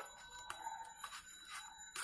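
Paper envelope and printed cards being handled: a few short crinkles and taps as QR code cards are slid out of the envelope, over a faint steady high tone.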